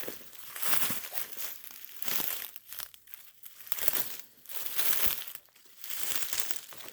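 Footsteps crunching through dry leaf litter and brush, in irregular crunches.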